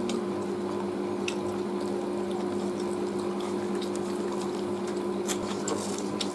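Wet eating sounds of people eating roast chicken with their hands: chewing, with small smacks and clicks scattered through. A steady low hum runs underneath.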